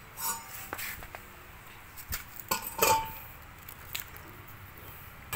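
Scattered light clicks and clinks of a small used chainsaw being handled.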